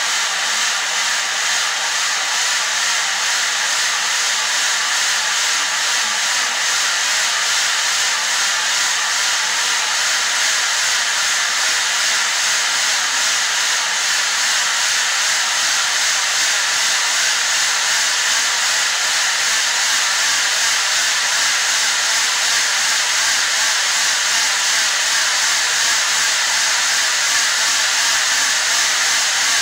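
Mountain bike's rear wheel spinning on a stationary trainer stand as the rider pedals, a steady high whirring hiss that holds an even level throughout.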